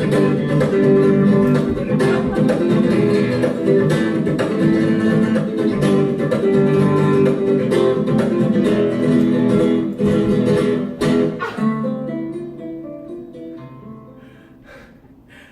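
Acoustic guitar music, busily plucked and strummed, that ends on a last chord about eleven seconds in and rings away to quiet.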